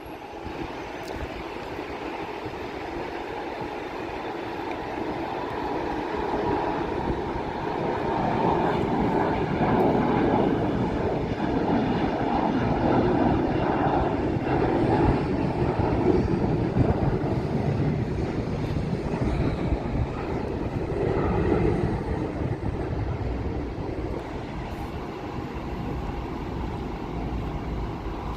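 Jet airliner engines roaring as the plane passes. The roar swells over the first ten seconds or so, holds, then slowly eases.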